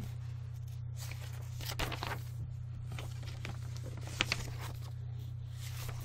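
Steady low electrical hum on the recording, with a few faint rustles and clicks, around two seconds in and again around four seconds in.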